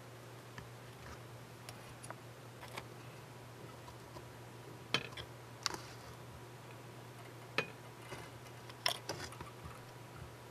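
Small sharp clicks of steel tweezers and fingertips handling them: a few single ticks about halfway through and a quick cluster near the end, over a faint steady low hum.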